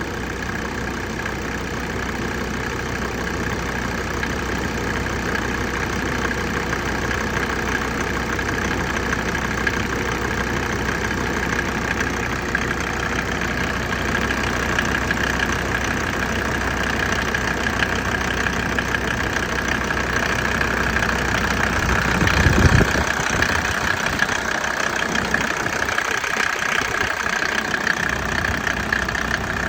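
Mercedes OM605 five-cylinder diesel idling steadily, slowly getting a little louder, just as the glow-plug warm-up phase ends, when the owner says a knock sets in. There is a brief low thump about 22 seconds in.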